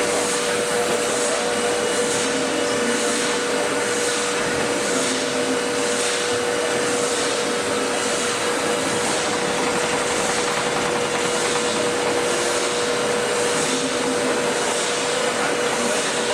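Metal engraving machine running steadily: a constant hum with one held tone and a high hiss that swells about once a second as the machine works.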